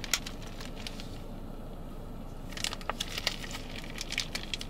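Clear plastic drink pouch of iced latte crinkling and crackling as it is handled and squeezed, with a cluster of sharp crackles starting about two and a half seconds in.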